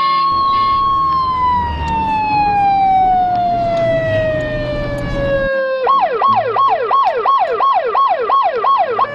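Siren of a set-off alarm: one long wail that slowly falls in pitch, then, about six seconds in, a fast up-and-down yelp of about three cycles a second.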